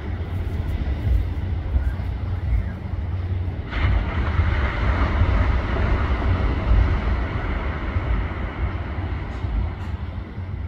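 Wind buffeting the microphone in a steady low rumble, with the rush of sea surf that swells suddenly about four seconds in and slowly eases off.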